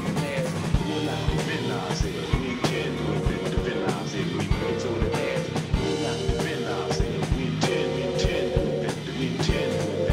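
Live band playing: a drum kit keeps a steady beat under electric bass and keyboard.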